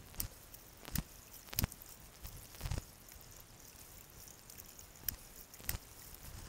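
A sluice mat being washed out in a plastic bucket of water to rinse the gold concentrates off: irregular splashes and knocks, about seven in all, against a faint steady hiss.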